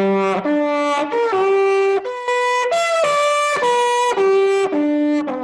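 Trumpet playing a run of about ten held notes, each lasting about half a second, that climbs in pitch and then steps back down to the low starting note.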